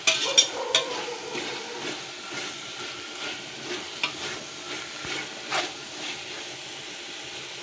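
Chicken pieces and green herbs sizzling in a metal pot with a steady hiss, while a flat spatula stirs and scrapes against the pot, a few sharp scrapes in the first second and more around the middle.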